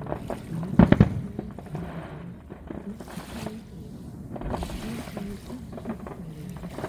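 Fireworks bursting: a quick cluster of sharp, loud bangs about a second in, then a lower steady background.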